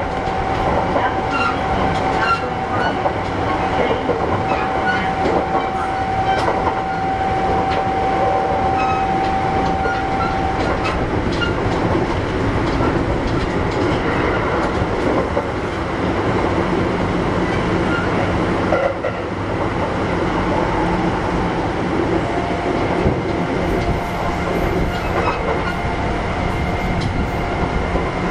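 Kintetsu 1021-series electric train running between stations: a steady rumble of wheels on rail with scattered rail-joint clicks. A steady whine from its Hitachi GTO inverter drive stops about ten seconds in and comes back fainter near the end.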